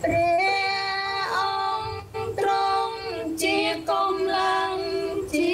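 A woman singing a slow Khmer worship song, holding long notes in unhurried phrases.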